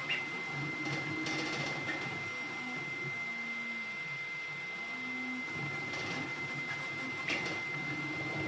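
Ender-3 V3 3D printer running a high-speed print: its motors give short notes that change pitch from move to move as the print head darts about, over a steady high whine.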